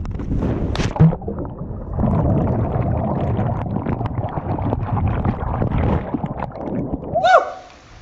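A person jumping feet-first into a deep swimming hole, heard from a camera carried into the water: rushing air in the fall, the splash of entry about a second in, then muffled underwater gurgling and rumbling for several seconds. A short shout near the end.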